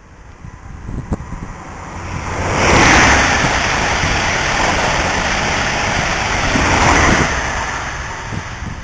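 A National Express East Coast HST with Class 43 diesel power cars passing through at speed: a loud rush of wheels and air that builds quickly, holds for about four seconds as the coaches go by, then fades as the train runs away.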